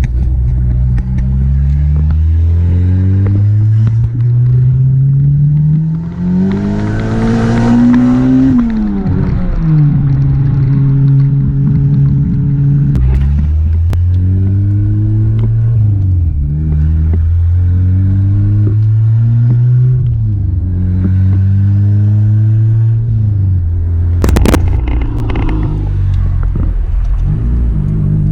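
Turbocharged Acura RSX's K20 four-cylinder engine accelerating hard. The engine note climbs for about eight seconds with a growing turbo hiss, then drops sharply at the shift. Several more rises and falls in revs follow, with a brief clatter near the end.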